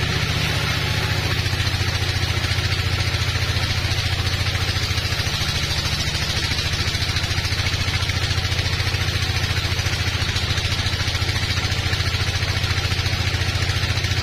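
Band sawmill running as its band blade cuts through a teak log: a steady, pulsing low drone from the mill's drive with a hiss of cutting over it.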